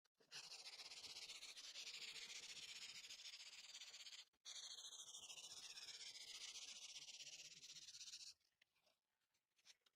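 A faint, steady hiss that breaks off briefly about four seconds in, then resumes with a tone in it sliding downward, and stops about eight seconds in.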